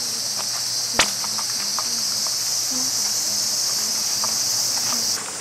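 Loud, steady high-pitched drone of a cicada chorus in summer woodland, cutting off suddenly near the end. A single sharp click about a second in.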